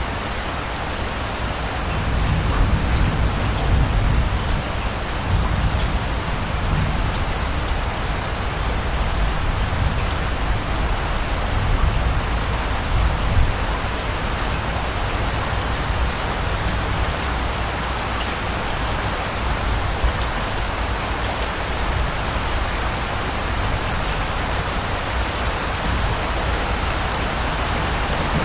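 Steady rain falling, an even hiss of drops, with a low rumble of distant thunder that swells about two seconds in and fades by the middle.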